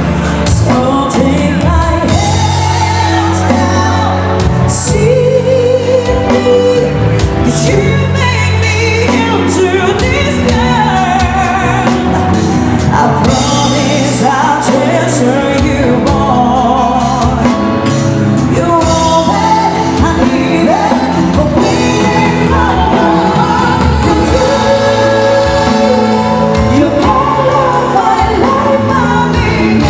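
Music with a singer: a vocal melody over bass and drums, loud and steady throughout.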